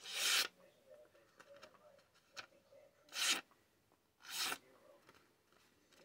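Guidesman folding pocket knife slicing through a sheet of paper in a sharpness test: three short cuts, one at the start and two about three and four and a half seconds in. The edge is a bit toothy and slightly dull.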